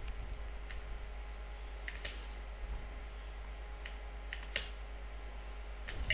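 Scattered clicks from a computer mouse and keyboard, about seven sharp clicks, some in quick pairs, over a low steady electrical hum.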